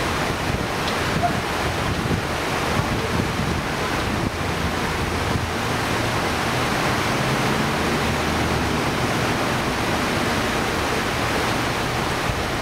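Shallow river water rushing steadily over a stony bed, a constant even rush with no breaks.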